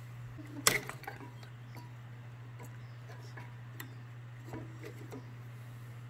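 Small clicks and taps of a Briggs & Stratton 140cc engine's carburetor and its linkage rods being handled and worked loose, one sharper click about two-thirds of a second in and fainter ones after, over a steady low hum.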